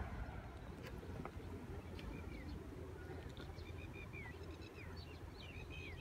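Small birds chirping, a run of short calls and quick downward-sliding notes repeating, over a faint low rumble.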